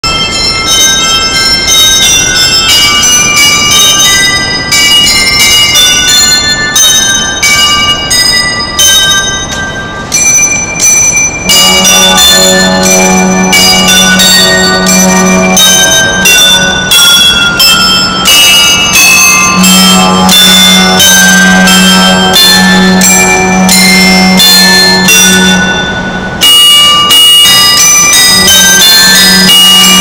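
Citizen bell-tower clock chiming a melody on its set of tuned bells, in quick ringing strikes. From about a third of the way in, a low held accompaniment tone plays beneath the bells. Bells and accompaniment pause briefly near the end, then carry on.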